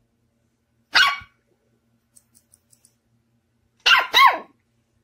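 Puppy barking in short yaps: one sharp bark about a second in, then two quick barks close together near the end.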